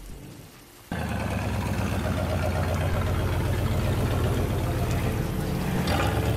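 A classic car's engine running as the car rolls slowly past on a dirt track, a steady low rumble with a noisy haze over it. It cuts in abruptly about a second in.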